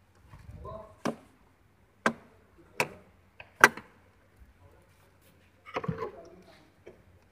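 Hard plastic armrest parts knocking and clicking as they are handled and fitted: five sharp knocks over a few seconds, the fourth loudest, then a scuffling rustle near the end.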